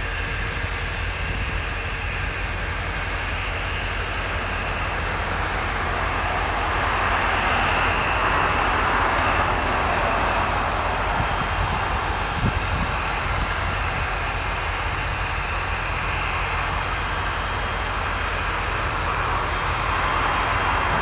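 CSX diesel freight locomotives running with a train at low speed: a steady low engine rumble under a rushing noise that grows somewhat louder about six seconds in.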